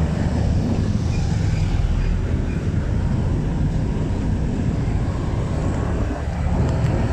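Steady low engine and road rumble, heard from on board a vehicle moving slowly in traffic. A few faint clicks come near the end.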